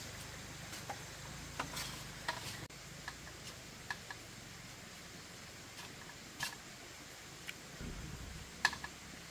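Scattered light clicks and knocks of bamboo poles being handled and fitted into a bamboo hut frame, over a faint steady hiss.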